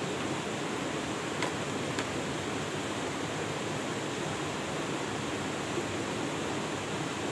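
Steady rushing noise, with two light metallic clicks about a second and a half and two seconds in as the folding steel pot-support arms of a portable gas camp stove are swung into place.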